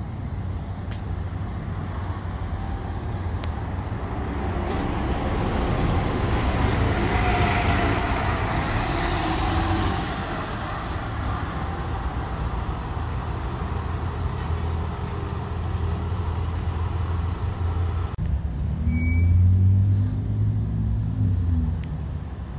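City bus engines running with a steady low hum. One bus grows louder and passes close about a quarter of the way in, then fades. Another engine swells loudly near the end.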